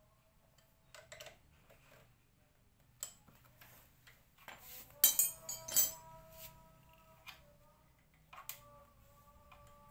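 Hand tools and metal parts clinking and knocking: a few single clicks, then a quick cluster of clatters about halfway through, and another click near the end.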